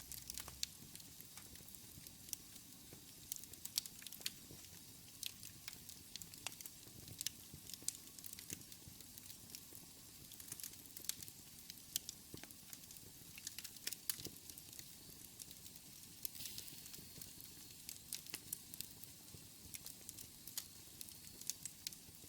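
Wood fire crackling in a fireplace: a steady faint hiss with frequent sharp, irregular pops and snaps.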